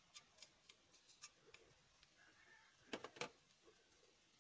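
Faint clicks and taps of a metal spatula against a stainless steel pan as chopped onion is stirred, with a louder cluster of clinks about three seconds in.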